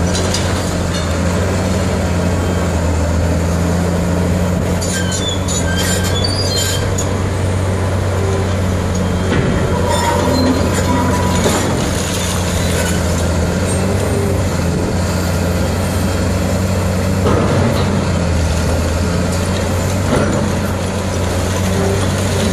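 Demolition machine's diesel engine running steadily under load, with brief high metallic squeals and scraping about five seconds in and again around ten to twelve seconds in.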